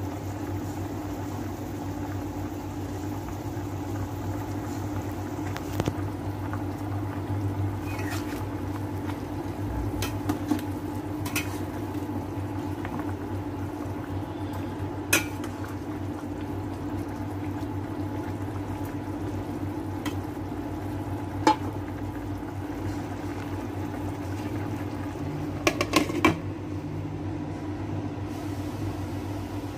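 Braising liquid simmering in a stainless steel pot on an induction cooker, over the cooker's steady hum. A ladle clinks sharply against the pot a few times while stirring, and a glass lid clatters onto the pot near the end.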